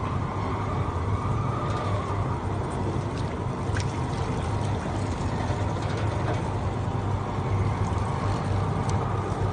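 Fish meat-and-bone separator machine running: a steady motor hum with a few scattered light clicks.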